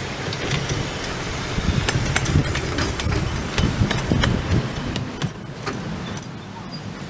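Miniature steam railway train running past close by, the locomotive followed by a line of loaded passenger carriages: a steady rumble of wheels on the rails with irregular clicks and knocks, louder in the second half.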